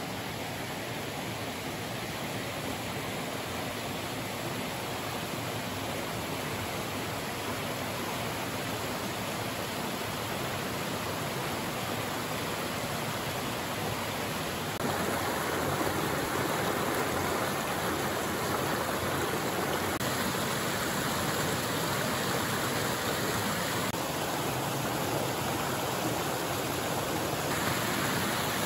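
A shallow moorland stream rushing over stepped limestone ledges and small falls, a steady hiss of water. It grows louder about halfway through.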